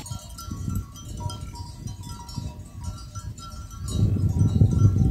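Bells on a grazing yak herd clinking in short scattered notes, with occasional animal calls. About four seconds in, louder music comes in over them.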